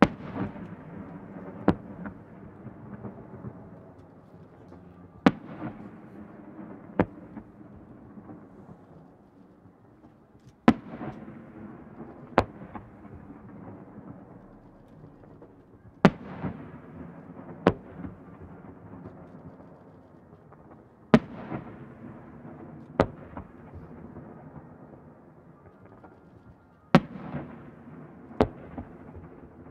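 Aerial firework shells bursting one after another, the bangs coming in pairs about a second and a half apart, a pair roughly every five seconds. Each bang is followed by an echo rolling back across the lake.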